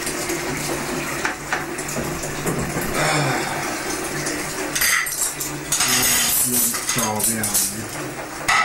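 Crockery and cutlery clinking and clattering as dishes are washed by hand and set down, with a few sharp knocks, under low talking voices.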